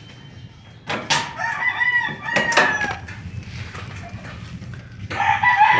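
A rooster crowing twice, the second crow starting near the end. There are a few sharp clicks of tin snips cutting sheet metal.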